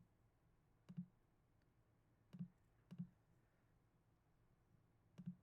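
Near silence broken by four faint, short clicks: one about a second in, two close together around two and a half to three seconds, and one near the end.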